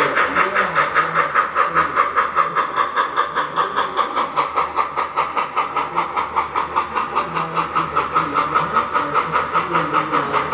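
O scale model steam locomotive sound: a steady beat of exhaust chuffs, about five a second, with steam hiss.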